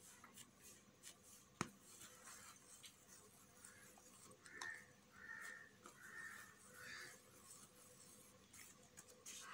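Near silence, with faint soft rustles of hands shaping bread dough on paper and one sharp click about one and a half seconds in.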